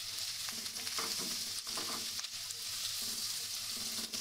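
Vegetables and meatball slices sizzling in hot oil in a nonstick wok, with a spatula stirring and scraping them around the pan in short strokes over a steady frying hiss.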